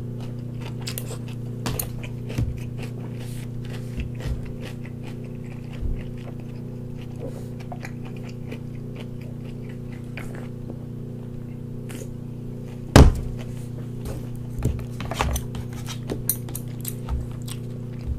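Eating with metal chopsticks: scattered light clicks and chewing sounds. There is one loud thud about thirteen seconds in, a soda can set back down on the table. A steady low hum runs underneath.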